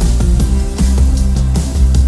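Loud background music with a strong steady beat, electronic and rock-flavoured.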